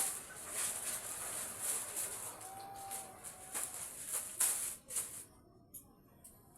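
Rustling and crackling, like plastic packaging being handled, which stops about five seconds in. A faint thin tone sounds a few times underneath.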